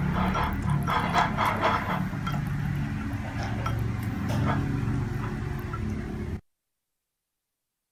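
Wire whisk clinking and scraping against a ceramic bowl as it stirs a thick sauce of mayonnaise and chopped pickles, with quick runs of clicks over a steady low hum. The sound cuts off abruptly about six seconds in.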